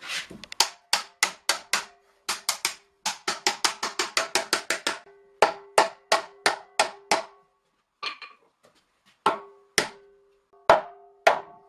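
Hammer blows driving metal hoops down onto a small wooden barrel, each strike ringing with a metallic tone. They come in quick runs of about three or four blows a second, broken by short pauses, the longest from about eight to nine seconds in.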